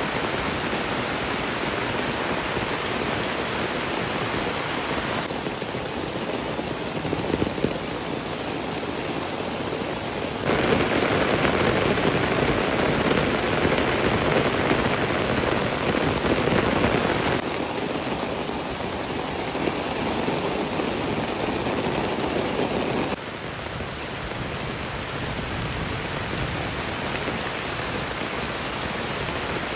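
Heavy rain pouring steadily onto a dirt path and foliage. Its loudness steps up or down abruptly several times, and it is loudest in the middle stretch.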